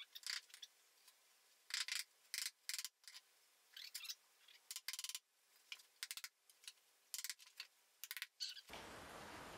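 Claw hammer tapping lightly on thin wooden perch dividers: a string of short, irregular taps with quiet gaps between them.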